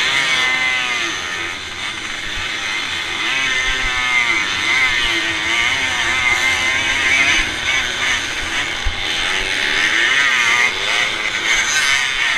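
Small two-stroke moped engines racing in a pack, buzzing at high revs, with the pitch rising and falling again and again as the riders throttle on and off through the corners.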